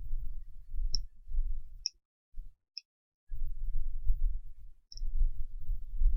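Handling noise at a repair bench: bumps of low rumble that come and go, with four short, sharp, high clicks.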